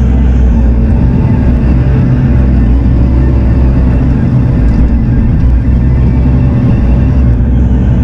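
Bobcat E42 mini excavator's diesel engine running steadily under working load, heard from inside the cab, with a wavering whine from the hydraulics as the boom and bucket move.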